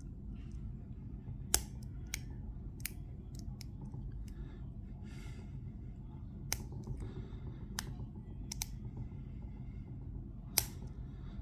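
Lock picks working inside a Master Lock Pro Series 6840 padlock: about ten small, irregular metallic clicks as pins are set. A steady low hum runs underneath.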